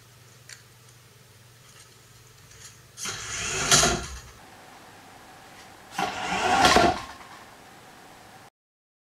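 A robotic trash can's drive motors whirring as it darts across a wooden floor, in two quick runs about three and six seconds in, each lasting about a second and building to a peak.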